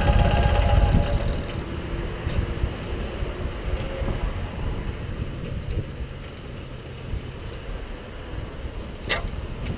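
Ural sidecar motorcycle's air-cooled boxer twin idling, then shut off about a second in, leaving low background rumble. A single sharp click comes near the end.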